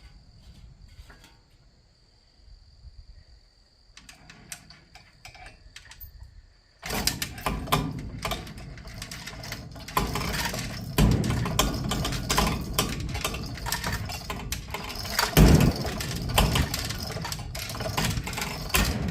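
Crickets chirping steadily in the background. About seven seconds in, a loud, continuous clattering and rattling of machinery starts up and runs on as the tilt furnace is moved into place over its gasket.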